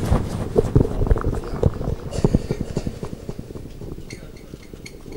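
Microphone handling noise: an irregular run of low knocks, bumps and rustles from the microphone or its stand, loudest at first and dying away after about three seconds.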